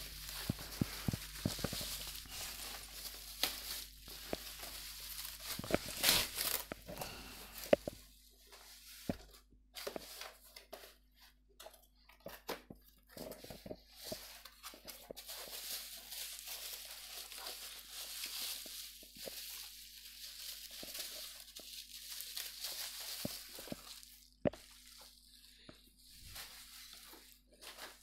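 Bubble-wrap plastic packaging and a cardboard box being handled, cut and torn open as a parcel is unpacked: irregular crinkling, rustling and tearing with short clicks.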